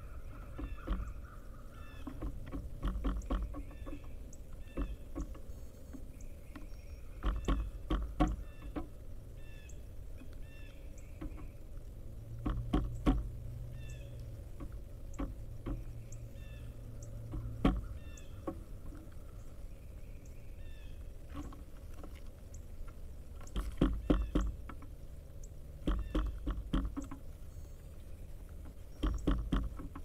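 Pileated woodpeckers pecking into peanuts and sunflower seed on a wooden platform feeder: sharp bill knocks in quick bursts of several strikes, coming every few seconds, with faint short chirps between them.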